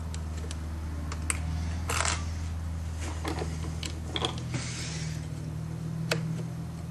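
Small irregular metallic clicks and a brief scrape of steel parts as the front axis pin is pushed through an AK-47's hammer and receiver, over a steady low hum.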